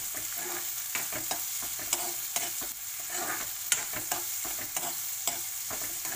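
Chopped onions and garlic sizzling in a little oil in a kadhai, stirred with a metal spoon that clinks and scrapes against the pan several times.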